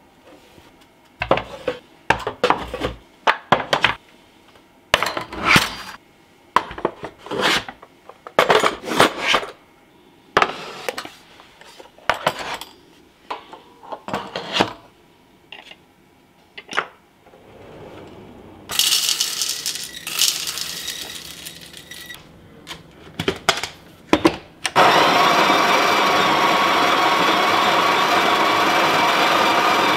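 Wooden drawer organizer trays and kitchen utensils being set into a kitchen drawer: a long run of separate clacks and knocks, then a short rustling noise. About 25 seconds in, a Breville Barista Express espresso machine's built-in conical burr grinder starts and runs steadily and loudly, grinding coffee beans into the portafilter.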